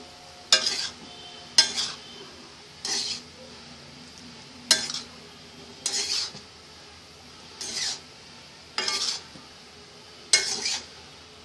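A metal spatula scraping and tossing fried rice around a steel kadai as schezwan sauce is mixed in, in about eight separate strokes a second or so apart.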